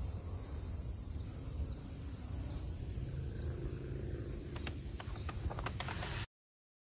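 Evening insects chirring in a steady high-pitched hiss over a low rumble of wind on the microphone, with a few light clicks near the end. The sound cuts off abruptly about six seconds in.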